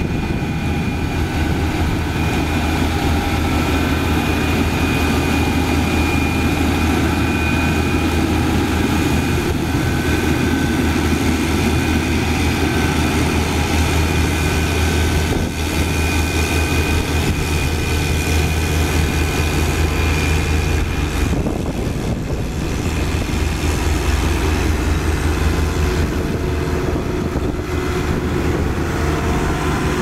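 Caterpillar 12K motor grader's diesel engine running under load as its blade cuts and pushes dirt along a road shoulder: a steady low drone with a high whine on top. About two-thirds of the way through the sound shifts, and near the end a Caterpillar soil compactor's diesel is running close by.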